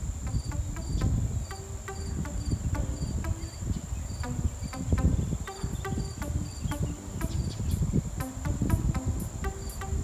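Crickets chirping in an even rhythm, about three chirps a second, over a continuous high insect trill, with faint music of short plucked low notes underneath.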